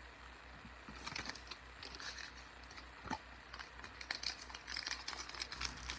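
Faint crinkling and rustling of trading-card pack wrappers and cards being handled, with scattered small crackles and clicks, over a faint low hum.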